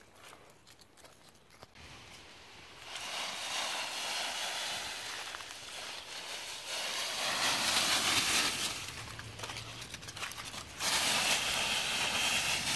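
Dry fallen leaves rustling and crunching as feet move through a deep leaf pile, starting about three seconds in and growing loudest in two spells, near the middle and near the end.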